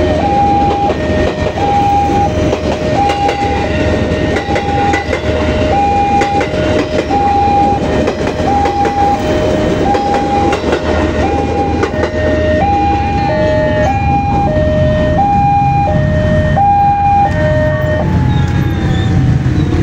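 Railway level-crossing warning signal sounding a steady alternating two-note electronic chime, with a second signal chiming out of step for a while before both stop near the end. Underneath, a KRL commuter electric train rumbles past over the rails with wheel clatter.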